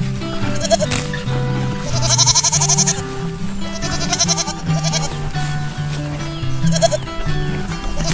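Background music with a steady melody under an animal bleating in quavering cries: one long bleat about two seconds in and a short one near the end.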